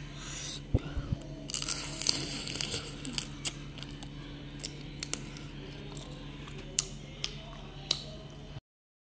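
Eating a steamed giant freshwater prawn: wet clicks and crackles of chewing and handling the prawn, denser about one and a half to three seconds in, then scattered single clicks over a steady low hum. The sound cuts off shortly before the end.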